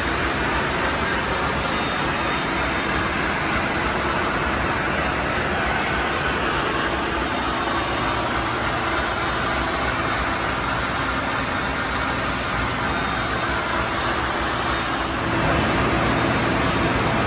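Steady loud machinery noise of a ship's engine room, an even din with faint steady hums in it, growing a little louder and deeper near the end.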